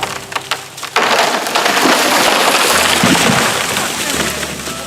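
Wood cracking and splintering. A few sharp cracks, then about a second in a sudden loud crash of breaking wood that slowly dies away over the next few seconds.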